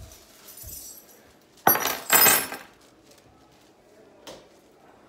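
Things being handled and set down by hand: two loud, short clinking clatters about two seconds in, with faint thumps and rustling around them.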